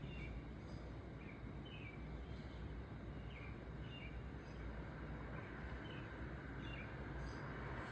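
Outdoor ambience: a bird repeating short, falling chirps about once a second over a steady low rumble. Near the end the rumble grows slightly louder.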